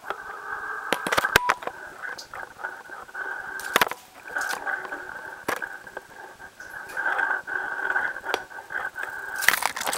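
Small camera rover knocking and scraping against rock as it goes down a narrow hole: repeated sharp clicks and knocks, loudest about a second in, near four seconds and near the end, over a steady mid-pitched hum.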